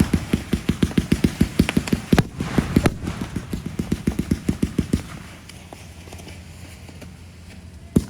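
Fireworks display: a rapid string of sharp reports, several a second, with a couple of louder bangs about two and three seconds in. The reports die away about five seconds in, and a fresh volley starts at the very end.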